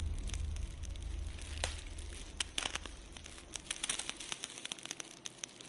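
Crackling fire: irregular sharp pops and crackles over a low rumble that fades away within the first few seconds.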